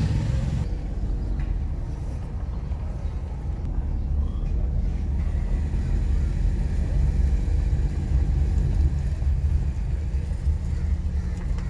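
Steady low rumble of a moving vehicle heard from on board: engine and road noise, without any sharp events.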